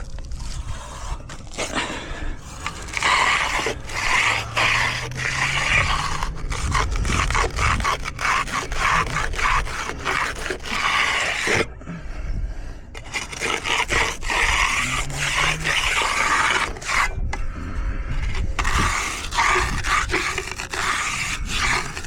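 Tools scraping over fresh concrete in repeated strokes, pausing briefly twice.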